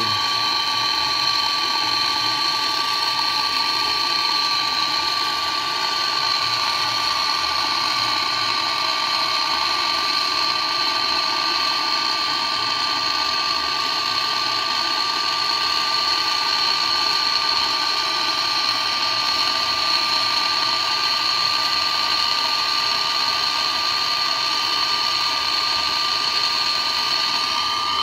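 Handheld gas torch burning steadily, a continuous hiss with a faint steady whistle, as its flame heats the aluminium solder over a pinhole leak in a refrigerator's tubing.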